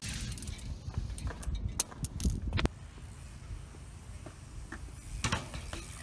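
Fidget spinner held against a spinning BMX front wheel: a hiss at first, then a few sharp clicks and knocks, over a low wind rumble on the microphone.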